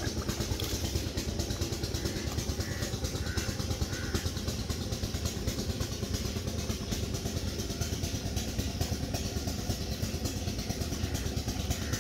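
A steady low engine drone, like a motor idling, running unchanged throughout.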